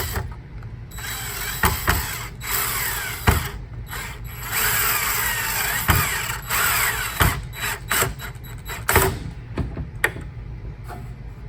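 A screw being driven to fasten the worm gear cover on a Bissell 677 sweeper's rear brush motor: stop-and-go bursts of clicking, whirring tool noise, with a few sharp knocks of handling in between. The longest run of driving comes about halfway through.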